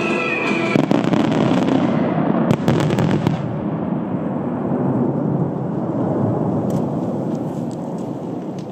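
Fireworks going off in a dense volley, aerial shells and ground fountains together making a continuous rumble, with a cluster of sharp cracks about two and a half to three seconds in, easing off slightly near the end.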